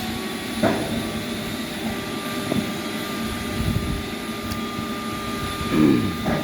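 Heavy sawmill machinery running steadily with a constant whine, with two brief squeals, one about half a second in and one near the end.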